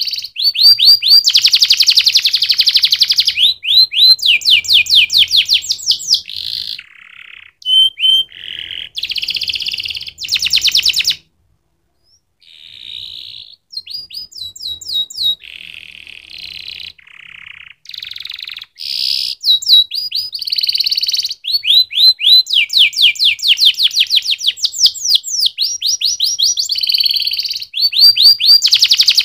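Domestic canary singing: fast trills of rapidly repeated high notes and rolling phrases, broken by short pauses. The song stops altogether for about a second near the middle.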